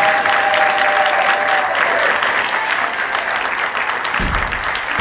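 Audience applauding, with a long held cheer from one voice over the clapping for the first two seconds.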